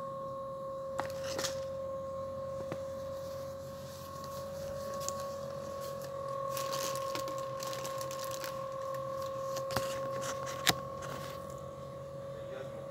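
Steady high-pitched electrical hum in a shop, with a few scattered clicks and light knocks, the sharpest about ten seconds in.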